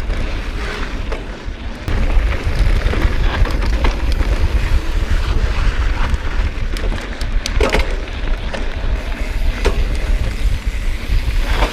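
Wind rumbling on an action camera's microphone as an electric mountain bike rides a loose, sandy dirt trail, with tyre noise over the ground. A couple of sharp knocks from the bike come in the second half.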